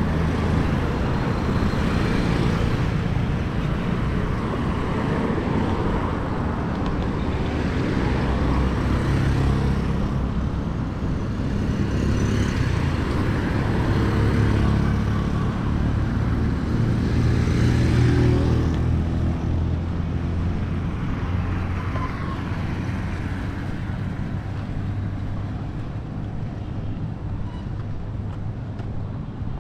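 Road traffic: motor vehicle engines and tyres running past in a steady rumble, with several vehicles swelling louder as they pass and the noise easing off in the last third.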